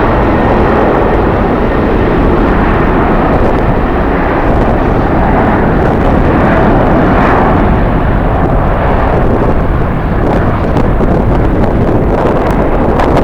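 Jet airliner engines running as an aircraft moves past, a steady loud roar mixed with strong wind buffeting the microphone.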